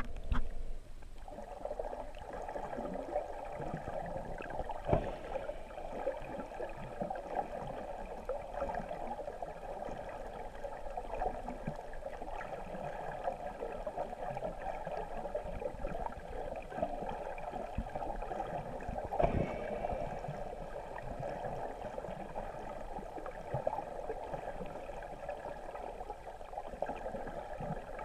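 Muffled, steady water noise recorded underwater through a camera's waterproof housing, with a couple of sharp knocks about five seconds and nineteen seconds in.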